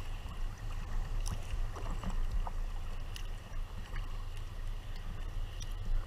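Sea kayaks being paddled: water splashing from paddle strokes and lapping against the hull, as short scattered splashes over a steady low rumble.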